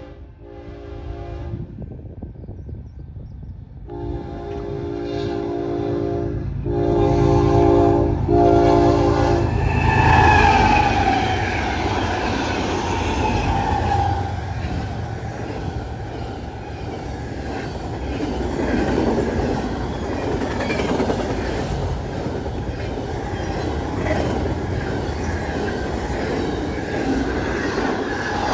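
A BNSF intermodal freight train's horn sounds in several blasts, a short one and then three longer ones in quick succession. About ten seconds in, the horn's pitch drops as the locomotive goes by, and the rumble and wheel clatter of the passing train, running at about 70 mph, follows.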